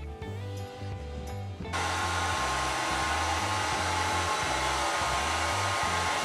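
Background music with a steady bass line. About two seconds in, a loud, steady rushing noise with a faint whine, like an air blower, starts abruptly and holds.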